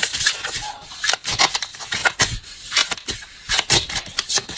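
Tarot and oracle cards being handled, with irregular rustling and sharp clicks of card stock.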